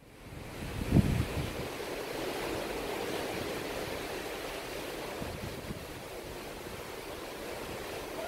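Steady rushing of wind and sea heard from a ship's deck, with a low thump about a second in.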